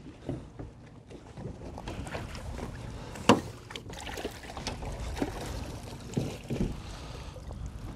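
Knocks and clunks of gear in a small boat over a low rumble of wind and water. A sharp knock about three seconds in is the loudest, and a few softer knocks follow.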